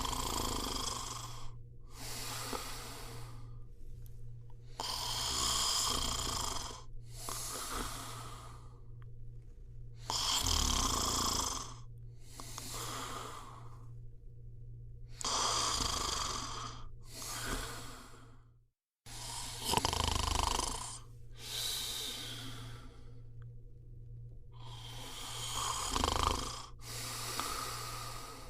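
A person snoring: rough, rasping breaths in and out, repeating every couple of seconds, over a steady low hum. There is a short silent break about two-thirds of the way through.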